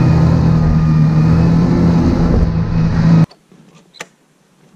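Ski-Doo Skandic SWT 900 ACE snowmobile, a Rotax three-cylinder four-stroke, running steadily under way and heard from the rider's seat, with a held low hum. The sound stops suddenly about three seconds in, leaving quiet with one light click.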